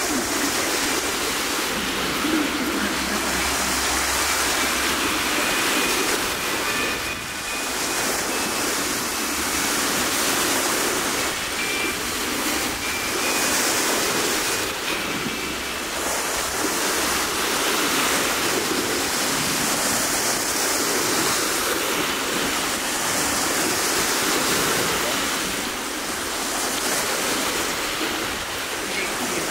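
Steady outdoor rushing noise that swells and eases every few seconds, with a faint murmur of voices.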